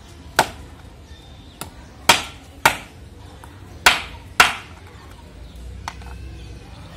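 Kitchen knife chopping a small fish into pieces on a wooden cutting board: five sharp knocks of the blade striking the board, the last four in two quick pairs, with a couple of lighter taps between.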